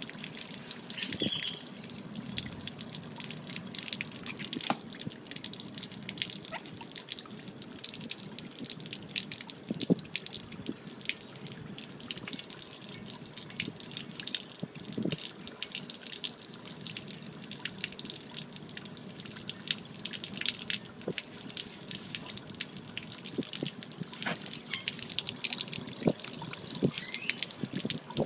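A steady stream of water pours from a boat hull's open transom drain and splatters on concrete pavement. It is water that has collected inside the hull of a Mako Pro Skiff, which the owner takes for a fault needing repair.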